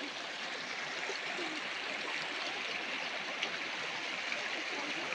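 Shallow stream rushing steadily, an even hiss of flowing water.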